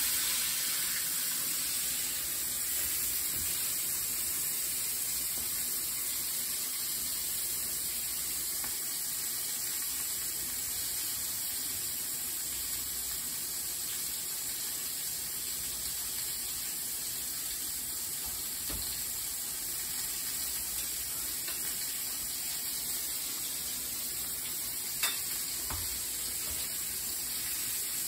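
Sliced red onion sizzling steadily in a frying pan on a gas stove, with an occasional sharp click.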